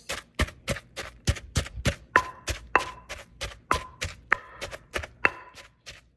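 Wooden pestle pounding a coarse paste in a clay mortar, a steady rhythm of about three strikes a second. Some strikes give a short ring from the mortar.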